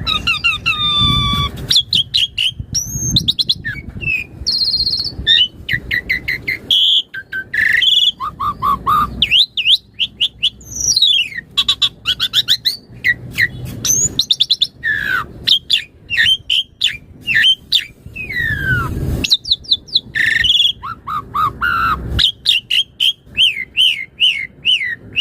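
Pied starling (jalak suren) singing nonstop in full voice: a rapid, varied stream of clear whistles, rising and falling sweeps, repeated short notes and chatter.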